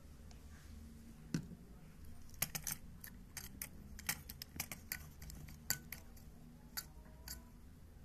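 Light, irregular clicks and taps of a plastic CPU cooler fan being handled and its blades nudged round by hand after oil has been put into its motor, a handful at first and then in a quick scattered run for several seconds.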